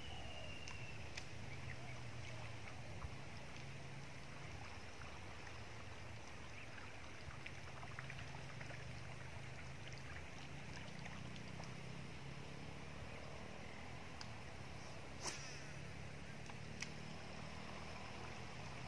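Steady outdoor background noise with a low rumble, with a few faint clicks and one sharper click about fifteen seconds in.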